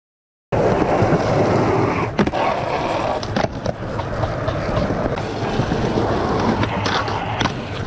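Skateboard wheels rolling over rough concrete in a steady grinding rumble that starts suddenly about half a second in. Several sharp clacks cut through it, about 2 s in, twice around 3.5 s, and twice near the end.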